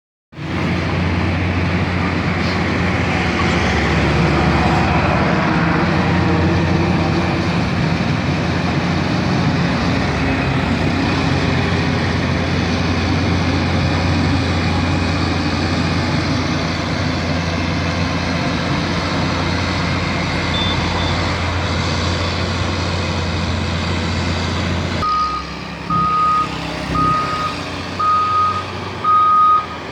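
Heavy milling machine running with a steady, loud mechanical drone. About 25 seconds in, the drone drops away and a reversing alarm starts beeping about once a second.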